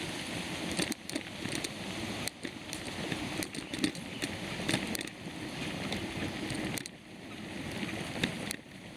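Mountain bike ridden over a rough dirt trail: a steady rush of noise with frequent clicks and rattles from the bike.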